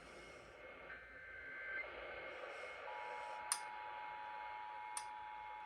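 Emergency Alert System two-tone attention signal over a radio receiver's static hiss, starting about three seconds in and holding steady. Before it there are faint higher tones, and two sharp static clicks come during it.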